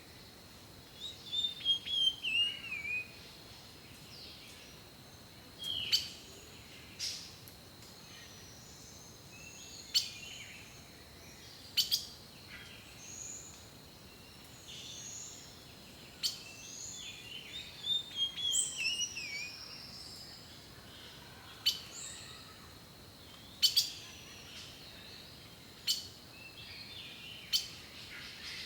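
Several wild birds singing and calling: scattered short chirps, whistled notes and a repeated descending warbled phrase, over a faint steady outdoor background.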